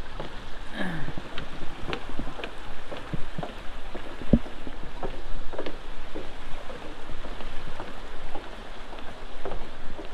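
Outdoor background noise picked up by a handheld camera: a steady rush and low rumble with many scattered light clicks and knocks.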